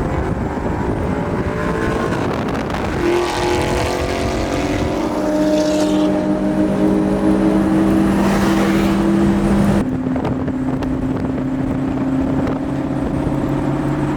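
Car engine pulling through a gear, its pitch climbing slowly for several seconds, then dropping abruptly at a gear change about ten seconds in and running steadily after that.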